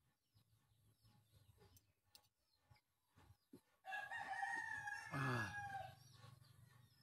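A rooster crowing once, about four seconds in: a single call held for roughly two seconds that drops away in pitch at the end.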